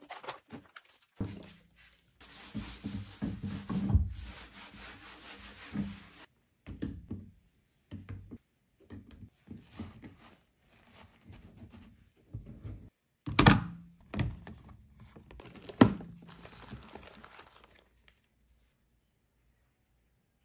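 A sponge scrubbing a shelf top for about four seconds, then the handling of toiletries and a plastic basket. Two sharp knocks come a little past the middle, as things are set down on the shelf.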